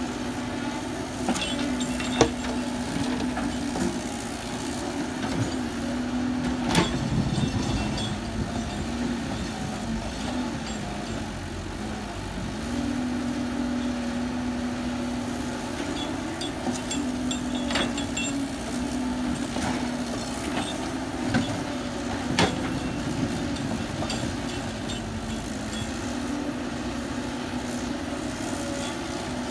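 Heavy construction machine's engine running at a steady pitch, with a few sharp knocks spread through.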